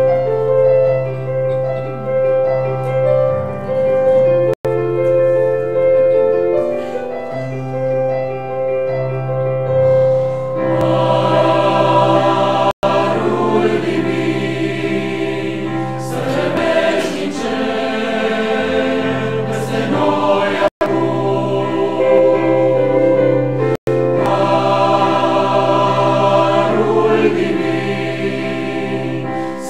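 Mixed church choir singing a Romanian hymn in several parts, with long sustained notes. It grows fuller and louder about ten seconds in, and the sound drops out for an instant four times.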